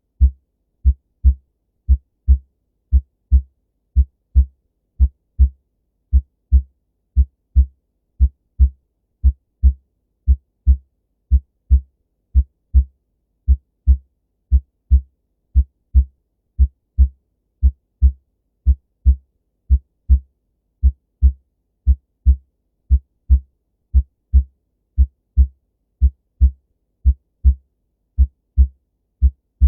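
Clear, normal human heart sounds: a steady heartbeat of paired low thumps, the first and second heart sounds (lub-dub), about one pair a second.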